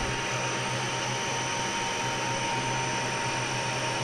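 Steady whir and hum of the running CNC milling machine, an even mechanical noise with a low hum and a thin steady tone above it.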